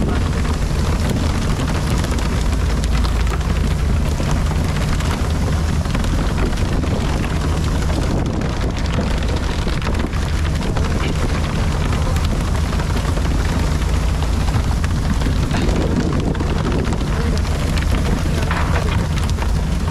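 Steady noise of a fishing boat at work: the engine's low drone under the rush of water spray hitting the sea surface, with wind on the microphone.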